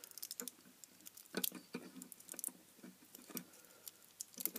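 Fingers handling a plastic LED lamp and its small Kapton-taped driver circuit board: faint scattered clicks, taps and scratches, with a louder cluster about a second and a half in and more near the end.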